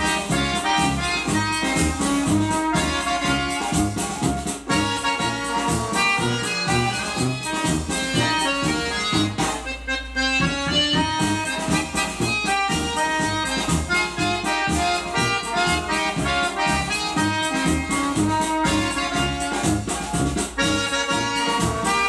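Accordion-led festa junina band music playing from a vinyl LP on a turntable, with a steady beat. The band thins out briefly about ten seconds in, then comes straight back in.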